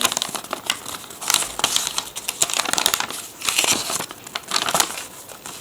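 A crumpled paper quick start guide being handled and unfolded, crinkling and crackling irregularly.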